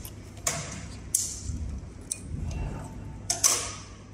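A thick leather strap is drawn out from under a heavy-duty sewing machine's presser foot and handled: a few separate sharp scrapes and clicks, the loudest near the end, over a low steady hum.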